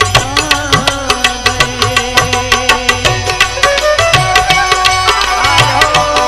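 Instrumental interlude of a Hindi devotional bhajan: a quick, steady drum beat under sustained held notes and a wavering melody line, with no singing.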